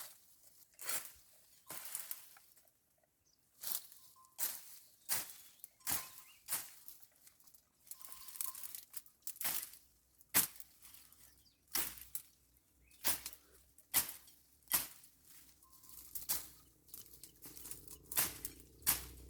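Repeated swishing, tearing strokes of a hand tool cutting through weeds and grass, about one to two strokes a second with a few short pauses.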